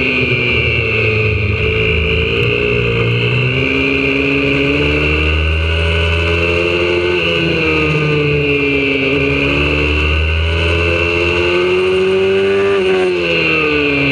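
Single-cylinder four-stroke engine of a YCF 125cc pit bike, heard onboard at racing pace. Its pitch climbs as it accelerates and falls away into the corners several times, with a sudden drop near the end.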